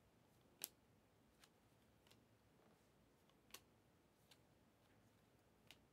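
Faint clicks of glossy trading cards being slid one behind another as a stack is flipped through by hand: about six light snaps over near silence, the sharpest about half a second in.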